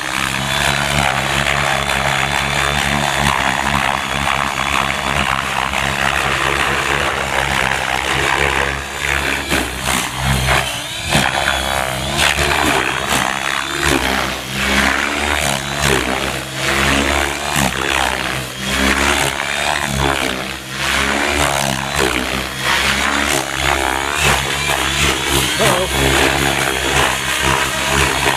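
Gaui X7 radio-controlled helicopter flying at high head speed: a continuous rotor whine and blade whoosh. The pitch dips and swings back repeatedly through the middle of the stretch as the helicopter is thrown through hard manoeuvres.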